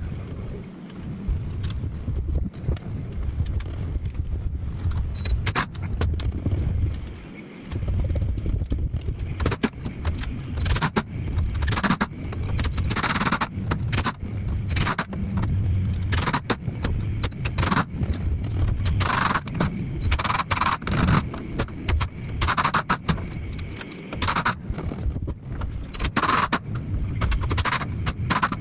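Hand-assembly clatter sped up eight times: rapid clinks, scrapes and rattles of bolts, hardware and hand tools on a steel CNC plasma table, over a low rumble.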